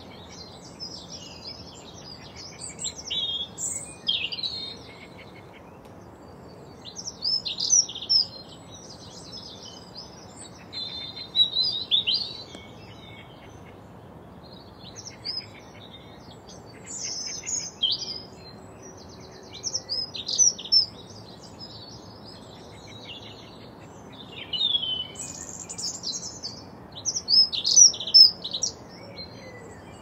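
A songbird singing short, varied, high twittering phrases, one every three or four seconds, with the loudest phrases near the end. A faint steady low background hum runs underneath.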